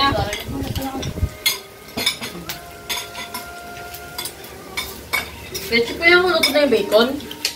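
Pork belly slices sizzling in a frying pan on a portable gas stove, with utensils clicking and clinking against the pan and plates.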